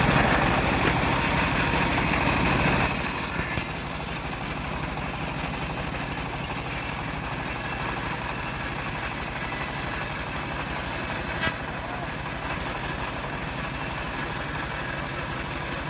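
Stihl MS381 two-stroke chainsaw running steadily. It is louder for about the first three seconds, then settles to a slightly lower, even drone.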